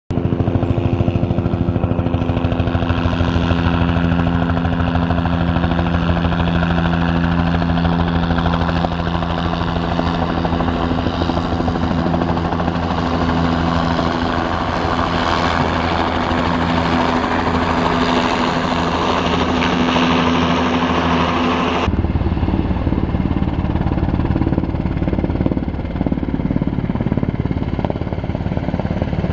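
A light turbine helicopter flying overhead, its turbine whine and rotor running steadily. After a sudden cut about three quarters of the way through, a larger Sikorsky S-70 Black Hawk-type twin-turbine helicopter is heard instead, with a lower, pulsing rotor beat.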